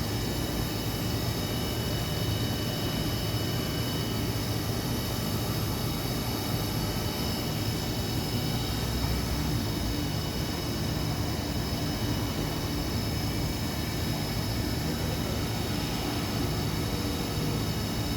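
Hurco VM30i vertical machining center running under power: a steady machine hum with several thin high whines.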